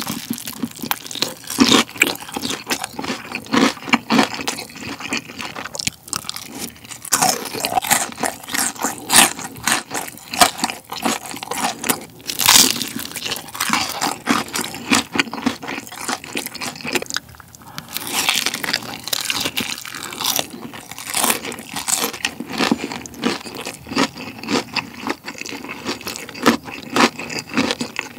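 Close-miked biting and chewing of deep-fried gimmari (seaweed rolls stuffed with glass noodles): a continuous, irregular run of crisp crunches as the fried coating breaks up in the mouth.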